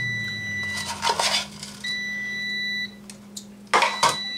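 Countertop air fryer oven beeping: a steady high beep about a second long, repeated every two seconds or so, over a steady low hum. A scrape comes about a second in, and a couple of sharp knocks near the end are the loudest sounds.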